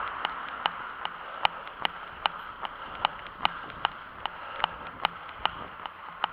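A runner's footfalls on pavement, an even beat of sharp clicks at about two and a half steps a second, over a steady hiss of wind and motion noise.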